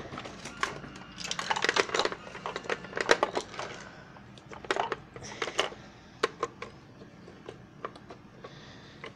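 Plastic toys being handled and knocked together close up: a dense run of clicks and clatters over the first few seconds, then scattered single knocks.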